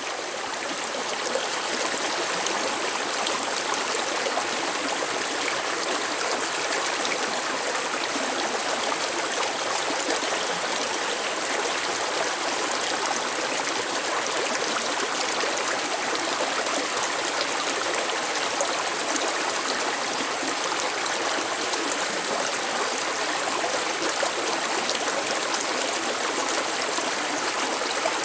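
Running water, a steady rushing splash like a stream or small waterfall, fading in over the first second or so and then constant.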